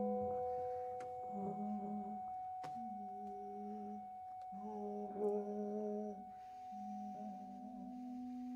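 Improvised music from a trio of prepared piano, saxophone and tuba: a long, steady pure tone is held throughout over a low drone that stops and restarts in short phrases, with a couple of sharp clicks from the piano's strings being played by hand inside the instrument.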